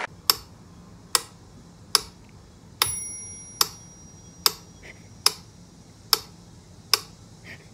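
Mechanical metronome ticking steadily, about 70 sharp ticks a minute.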